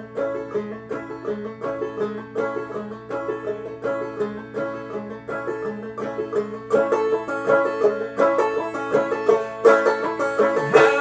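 Five-string banjo played clawhammer style, picking an instrumental passage in a steady rhythm with a repeating low note. The playing grows louder and busier about seven seconds in.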